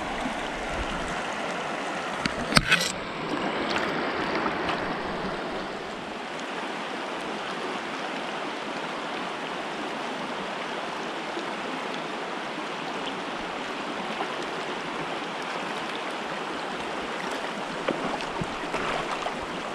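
Shallow, rocky mountain stream running over stones in a steady rush of water. A brief sharp knock sounds about two and a half seconds in.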